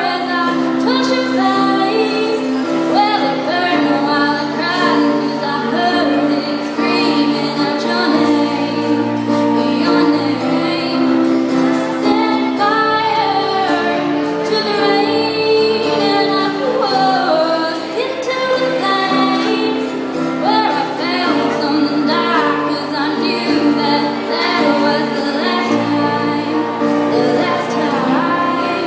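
A woman singing solo with instrumental accompaniment: one voice carrying the melody over steady held chords and bass.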